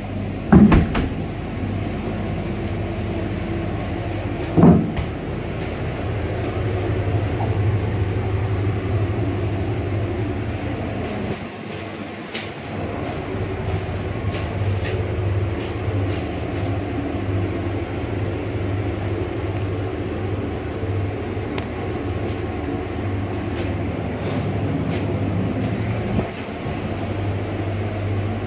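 Steady drone of a cold room's evaporator unit cooler fan running, with a low hum. Two short knocks stand out, within the first five seconds.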